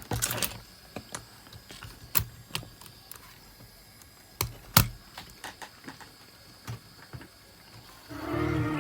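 Scattered sharp clicks and clacks of a Panasonic RQ-S60 cassette Walkman being handled, its buttons and cassette lid worked; about eight seconds in, music from the tape starts playing back, which the repairer hears as having a wavering pitch (flutter).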